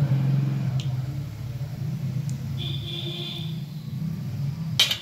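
A steady low, engine-like rumble over the faint sizzle of balls deep-frying in oil, with a sharp metal clink of a spatula against the pan near the end.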